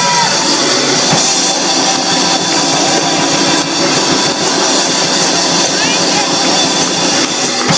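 Loud live church music with drums and held chords, voices crying out over it.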